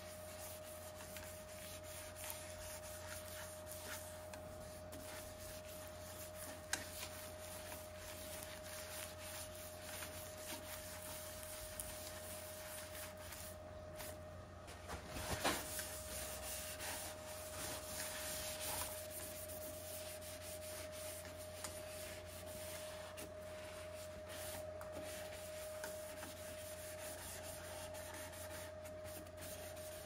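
Cloth and paper towel wiping and rubbing over the oiled surface of a turned wooden bowl, a soft irregular friction noise over a steady faint hum. A sharp click about a quarter of the way through and a louder knock about halfway.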